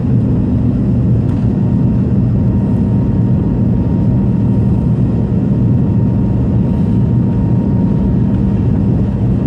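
Steady drone of a jet airliner's engines and airflow heard from inside the passenger cabin during the climb after takeoff: a deep, even hum with a faint higher whine above it.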